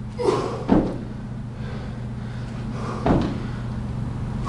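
Feet landing on a carpeted gym floor during suspension-strap plié squat jumps: a few dull thuds, two close together near the start and another about three seconds in.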